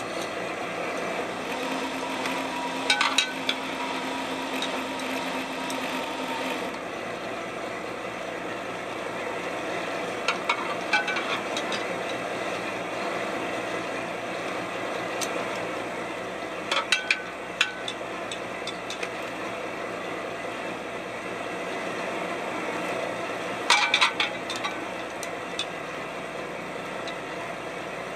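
A fishing boat's engine drones steadily during a salmon seine set. Four times, several seconds apart, a cluster of sharp knocks and rattles cuts through; these are the loudest moments. A faint whine runs for a few seconds near the start.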